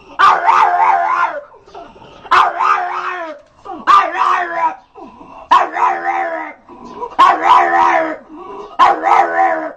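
Little dog giving its unusual, funny bark: six drawn-out, wavering, howl-like barks, each starting sharply and lasting about a second, with a short pause between them.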